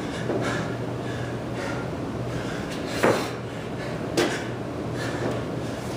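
A person doing burpees: thuds of hands, body and feet hitting the floor, the two loudest about three seconds in and a second later, over a steady low hum.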